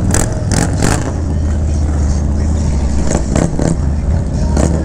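Harley-Davidson touring motorcycle's V-twin engine running at low speed as the bike rolls slowly along, with other motorcycles running close by and short gusts of noise in between.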